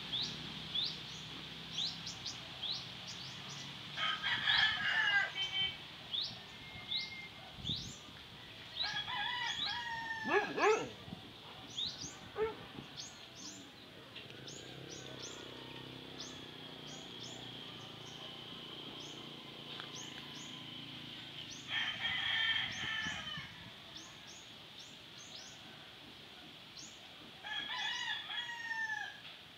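A rooster crowing four times, each crow about a second long, with a louder, lower cry overlapping the second one. Short high rising chirps repeat throughout over a steady high hum.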